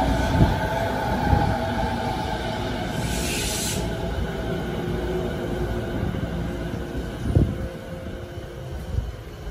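JR 209 series electric commuter train running out of the station past the platform, the sound fading as the last car pulls away. Its wheels knock over rail joints a few times and its motors hum, with a brief hiss about three seconds in.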